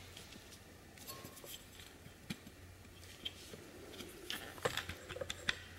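Faint scattered clicks and taps of an angle grinder's metal wheel guard and clamp being twisted and pried on the gear head, a few spaced clicks at first and a quicker cluster near the end.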